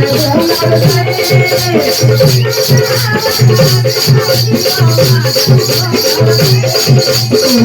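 Instrumental break of an Adivasi dance song: a fast steady beat of drum and a shaker-like rattle under a held melody line.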